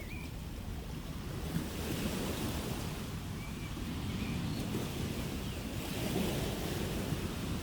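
Ocean surf: a steady low rumble of waves, with the hiss of a wave washing in swelling about two seconds in and again around six seconds.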